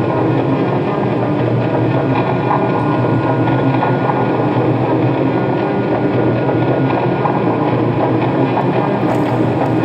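Steady rush of flowing water, a constant, even wash with no breaks.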